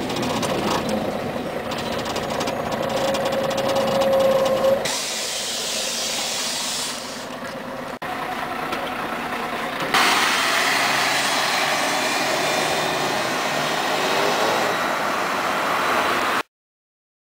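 Scania CN113CLL city bus running, its drivetrain giving a rising whine. About five seconds in, a sudden hiss of compressed air from the bus's air system. From about ten seconds in a louder steady hiss follows, which cuts off abruptly near the end.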